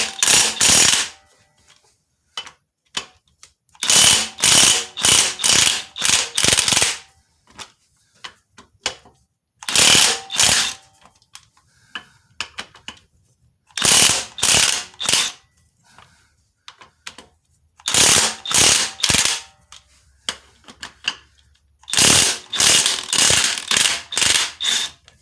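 Impact gun hammering the bolts loose on a Jeep 4.0's flywheel, in about six short bursts of rapid rattling with pauses between them.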